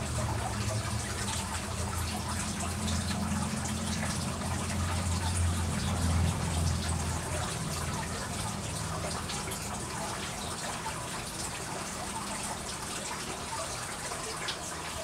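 Steady splashing noise of running water, with a low hum that is strong at first and fades about seven seconds in.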